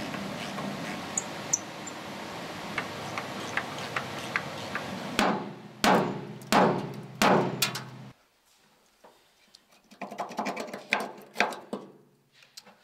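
Hammer blows on a rusted steel bracket of a bus's inner wheel arch: four heavy, ringing strikes about two-thirds of a second apart, knocking the rotted bracket loose. Before them come faint clicks of a spanner working a bolt over a steady background noise, and after them a run of lighter knocks and scrapes as the bracket is worked free.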